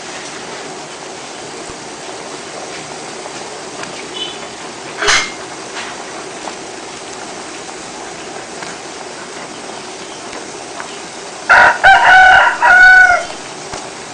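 A rooster crows loudly near the end, a call of several drawn-out segments, over the steady hiss of a pot simmering on the stove. A single sharp knock comes about five seconds in.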